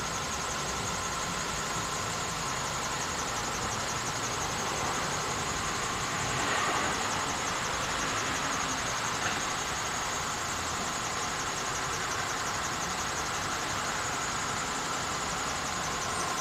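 Belgian level-crossing warning bells ringing steadily in a fast, even pattern while the crossing is closed. The idling engines of cars waiting at the lowered barriers run underneath.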